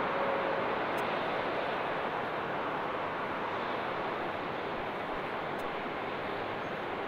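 Jet airliner engine noise, a steady rushing sound that slowly fades. A thin whine stops under a second in.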